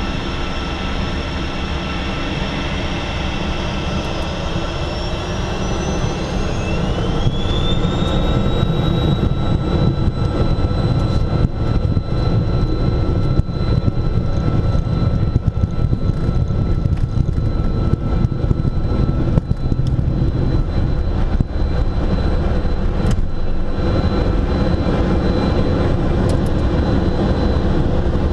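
Twin turbofan engines of an Embraer Phenom 300 heard from inside the cockpit on the takeoff roll. A whine rises over about five seconds, a few seconds in, as the engines spool up to takeoff power, then holds as one steady high tone over a loud low rumble.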